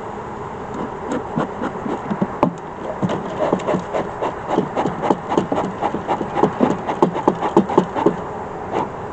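Wooden beehive frames and boxware knocking and scraping in a rapid, irregular run of clicks and rubs, over the steady hum of honeybees.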